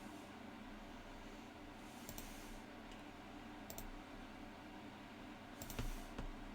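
Three sharp computer mouse clicks about a second and a half apart, each a quick press-and-release pair, over a low steady room hum.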